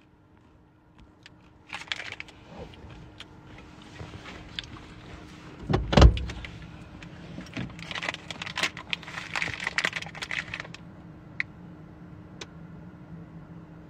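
Rustling and small clicks of a phone being handled inside a car, with one loud thump about six seconds in. A faint steady hum runs underneath.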